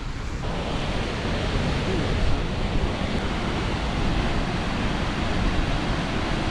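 Steady rushing noise with wind buffeting the microphone, the level rising and falling a little.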